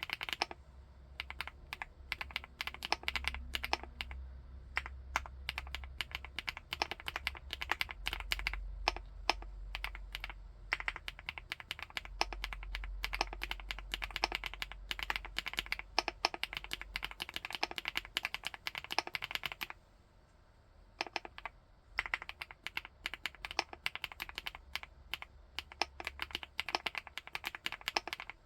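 Fast continuous typing on a 75%-layout full-aluminium keyboard, keys clacking in rapid runs, with a short pause just before two-thirds of the way through.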